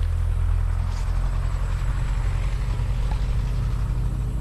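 Wind buffeting the microphone in an open field: a steady low rumble with a fainter hiss above it.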